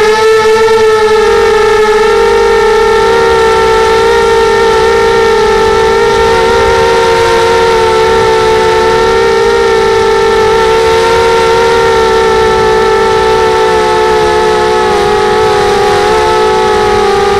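FPV racing quadcopter's brushless motors and propellers whining steadily, heard close through the drone's onboard camera microphone, the pitch wavering slightly.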